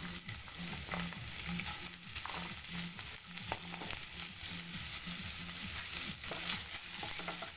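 Cut green beans sizzling in hot vegetable oil in a non-stick frying pan, with a wooden spatula stirring and scraping them near the end.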